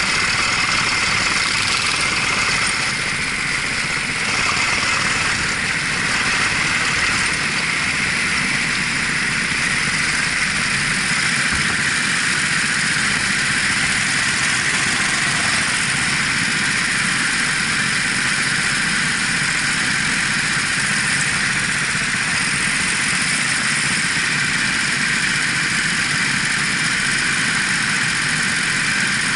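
Racing kart engine running steadily, heard through the driver's helmet-camera microphone.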